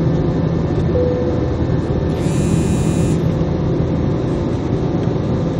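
Steady loud rumble and rush of an airliner's jet engines and airflow heard from inside the passenger cabin, with a low hum under it. A brief higher-pitched sound with several tones cuts in about two seconds in and stops about a second later.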